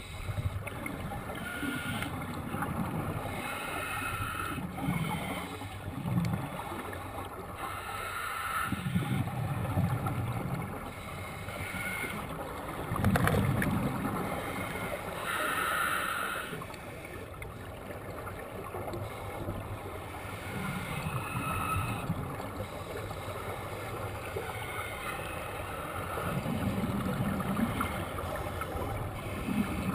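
Underwater scuba breathing through a full-face mask's regulator: a regulator hiss on each inhale, then a bubbly rumble of exhaled air, repeated every few seconds.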